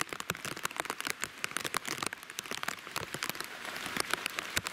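Tropical-storm rain falling, heard as a dense run of sharp, irregular drop hits close by over a steady hiss.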